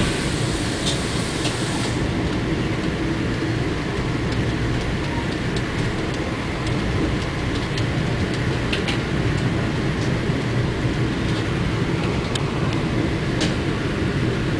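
Amtrak Silver Meteor passenger train rolling along the track, heard from inside the coach: a steady low rumble of wheels on rail with scattered light clicks.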